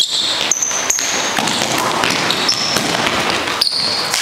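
Basketball players' sneakers squeaking on the gym floor, a few short high squeaks, with the thuds of a basketball bouncing.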